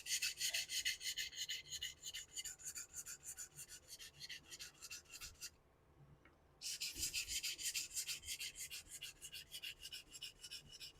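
Straight razor blade being stroked quickly and evenly across a Shapton 1k synthetic whetstone, a fast run of rasping passes that stops for about a second midway and then starts again. The stone is setting the bevel on the razor's edge.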